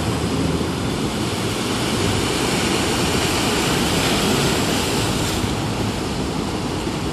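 Small sea waves breaking and washing in at the shore: a steady rush of surf that swells a little around the middle.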